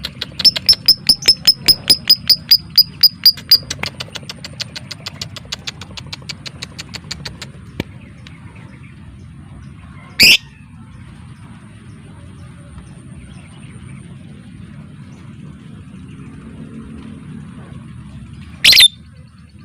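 Lovebird chattering in a rapid run of sharp, high notes, about five a second, loud at first and then fading away over a few seconds. Two single loud shrill calls follow, one about halfway through and one near the end.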